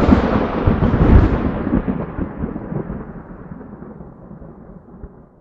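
A thunder-like boom that starts suddenly out of dead silence, then rumbles on, fading away over several seconds.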